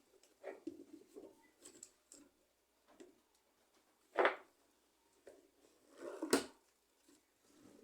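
Scattered clicks and knocks of hands handling a tub washing machine's drive belt and pulley, with two louder knocks about four and six seconds in; the motor is not running.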